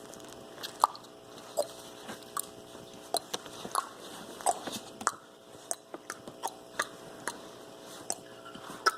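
Crunchy chewing: irregular crisp bites and crunches, about one or two a second, over a faint steady hum.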